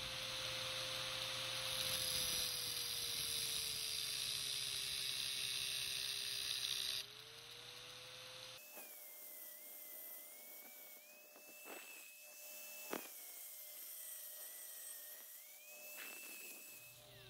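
Angle grinder with a thin cutoff wheel cutting small steel parts clamped in a vise: a loud hissing cut, the motor's pitch sagging under load, for about seven seconds, then the cut ends and the motor speeds back up. Then a quieter high whine from the grinder, dipping and rising in pitch, with a few sharp ticks.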